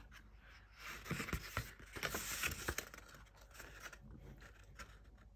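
A paperback picture book being opened and its pages handled and turned: soft paper rustles and scrapes, busiest in the first three seconds, then quieter.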